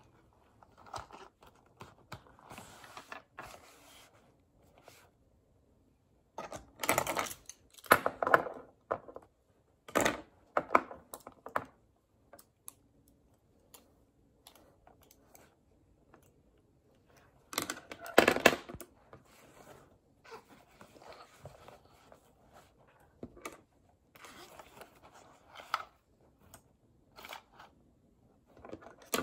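Pens and a fabric pencil case being handled on a table: irregular clacks of plastic pens knocking together and being set down, with rustling of the pouch. The louder clacking comes in short clusters about a quarter of the way in, a third of the way in and near the middle.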